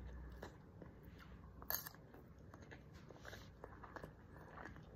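Faint chewing and mouth sounds of a person eating with a metal spoon, with a sharp click a little under two seconds in.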